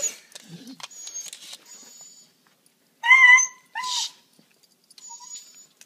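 A dog whimpering: two short high whines, the first held steady about three seconds in, the second sliding down just after.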